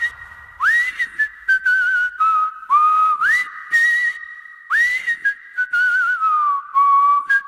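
A person whistling a short melody in breathy phrases. Several notes swoop quickly upward and then hold, some with a slight wobble.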